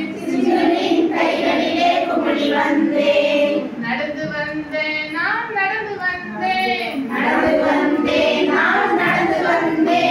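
A group of women singing a song together, with short breaks about four and seven seconds in.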